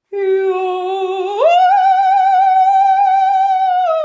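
A woman singing a classical vocal exercise on an open vowel: a held note, then a leap up an octave about a second and a half in to a long note sung with vibrato, which begins stepping back down near the end.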